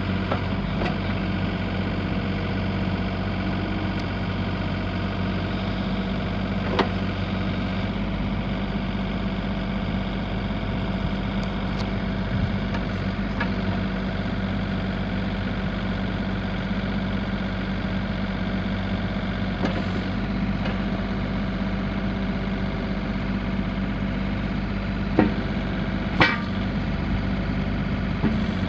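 John Deere 35D mini excavator's three-cylinder diesel engine idling steadily, with a few sharp clicks, one about a quarter of the way in and two near the end.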